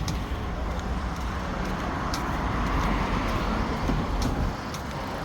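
Road traffic on a city street: a steady rumble of vehicles, with one getting louder around the middle and fading again.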